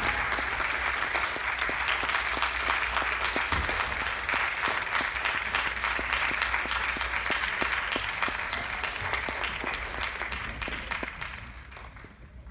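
Audience applauding a curtain call: dense, steady clapping that thins out and fades away in the last couple of seconds.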